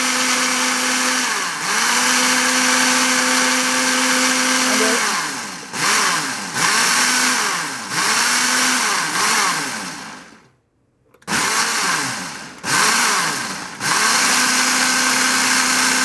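Ninja Professional countertop blender with a single-serve cup blending pancake batter. The motor runs steadily, then is pulsed in short bursts that spin up and down about once a second, stops for under a second past the middle, and after two more bursts runs steadily again near the end.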